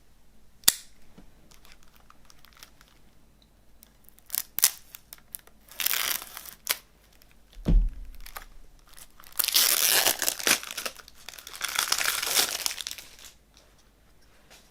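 Plastic packaging on a CD being torn open and crinkled as it is pulled off. There is a sharp click about a second in, short crinkling bursts from about four seconds, a dull thump near eight seconds, and a long stretch of loud crinkling from about ten to thirteen seconds.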